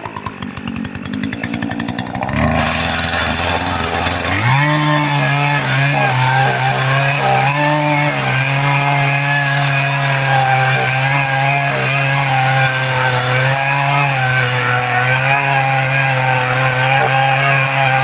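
Chainsaw fitted with a new, sharp bar and chain cutting through a large white oak trunk. It runs lower at first, then from about four seconds in holds a steady high-revving note under load as it cuts.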